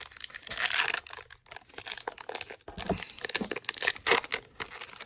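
Foil wrapper of a baseball card pack being torn open and crinkled by hand: irregular crackling and rustling, loudest from about a third of a second to a second in, then scattered crackles.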